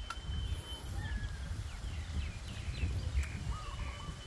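Rural outdoor ambience: birds chirping and calling now and then, with a steady low rumble, likely wind on the phone's microphone, underneath.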